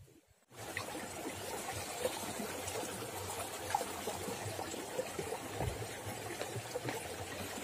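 Steady sound of running water, trickling and splashing, starting suddenly about half a second in.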